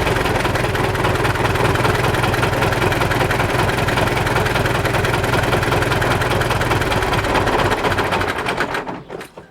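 MTZ tractor diesel engine idling with a knock that is put down to the fuel injection equipment. Near the end it is shut off and runs down to a stop within about a second.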